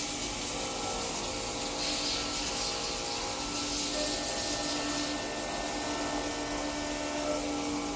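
CNC machine running steadily: a constant humming tone over a hiss, with a brief extra high hiss in the middle.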